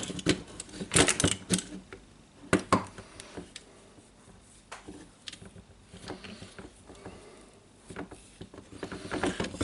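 Scattered clicks and knocks of a disassembled cordless jigsaw's parts being handled, a cluster in the first second and a half, a few more around two to three seconds in, then quieter fiddling.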